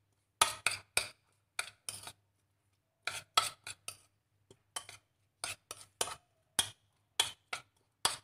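A spoon clicking and scraping against a bowl in short, irregular strokes while sambal matah is stirred.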